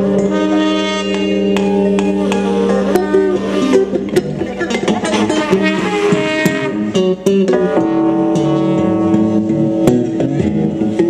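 Live improvised instrumental music: an electric guitar, keyboard and a wind instrument, with long held notes and frequent short, sharp plucked or struck notes.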